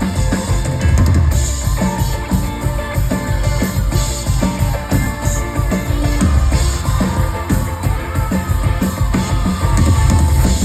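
Live band music over a concert sound system, with a drum kit's kick and snare keeping a steady beat.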